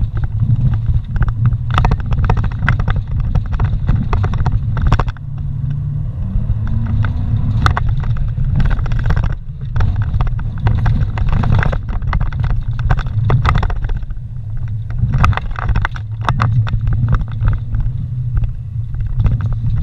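Vehicle driving slowly over a rough dirt trail, heard from inside the cabin: a steady low engine and drivetrain rumble with frequent knocks and rattles as the vehicle jolts over rocks and ruts. The engine note rises briefly about seven seconds in.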